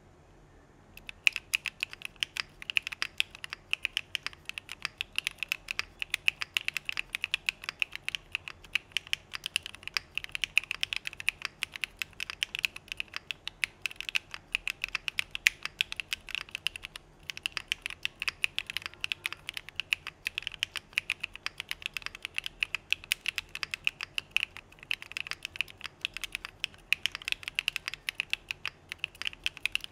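Fast, continuous typing on a Geonworks Frog mechanical keyboard with lubed Owlab London Fog linear switches in an aluminum plate and CRP Desko keycaps: a dense, unbroken stream of keystrokes that starts about a second in.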